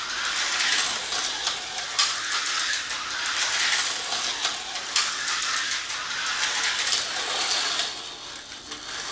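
Vintage Tyco slot cars racing round a plastic track: small electric motors whirring and the cars rattling along the slots, with frequent sharp clicks. The sound falls off about eight seconds in as a car comes to a stop.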